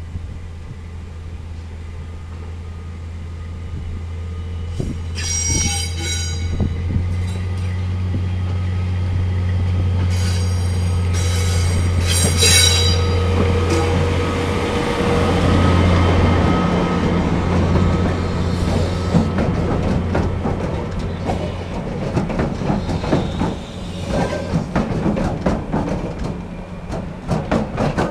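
SNCF Y 8000-class diesel shunting locomotive running at low speed and growing louder as it draws close, hauling a dead electric locomotive. The wheels give a high squeal on the curved track about five seconds in, then a longer squeal around ten to thirteen seconds. Near the end, the wheels clatter and click over the points.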